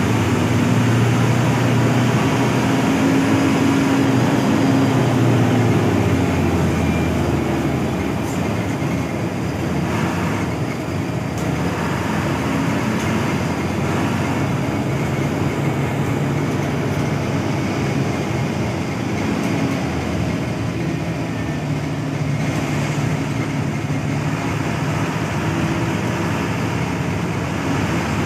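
Cabin sound of a Hino AK8 front-engined bus on the road: the diesel engine runs under a steady rush of road noise. Its note fades about six seconds in and grows stronger again in the second half.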